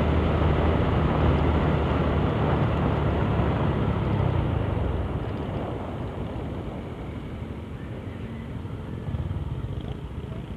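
Honda RS125 Fi single-cylinder underbone motorcycle running while being ridden, its engine mixed with wind and road rush. The sound is loud at first, then eases off about five seconds in, and picks up a little again near the end.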